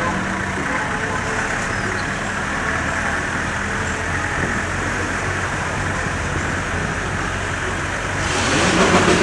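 A vehicle engine runs steadily at low speed with tyre and road noise, heard from inside the vehicle. About eight seconds in, a louder rushing noise swells for about a second.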